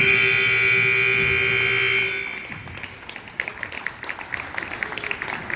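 Gymnasium scoreboard buzzer sounding one loud, steady tone for about two seconds as the game clock runs out, then cutting off. Scattered clapping follows.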